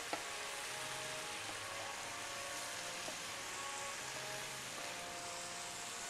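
Tomatoes and garlic frying in oil in a pan: a steady sizzle and crackle, with faint background music underneath.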